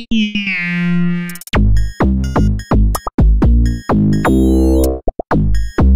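Oscilloscope music: electronic synth tones whose stereo waveform draws the figures on the oscilloscope screen. Held synth tones give way about a second and a half in to a choppy electronic beat with deep bass.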